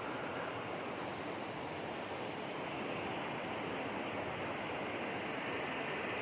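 Steady rush of flowing water, an even hiss with no distinct events.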